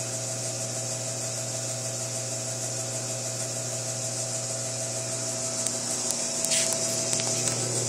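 Vulcan TM-60 commercial dough mixer's electric motor running steadily, a constant hum with a whine over it, with a few clicks near the end.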